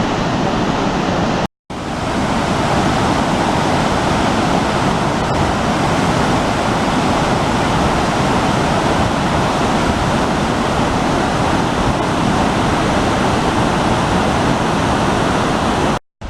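Waterfall's steady rushing roar of falling water, broken by a momentary cut to silence about a second and a half in and again just before the end.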